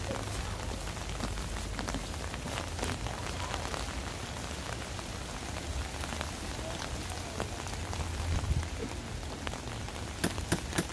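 Steady rain falling, with many small sharp drop impacts and a low rumble underneath; a few louder taps come near the end.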